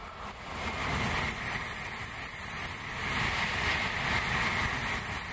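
N700-series Shinkansen bullet train running past on the station curve: a loud, steady rush of wheels on rail and air along the car bodies, building about a second in.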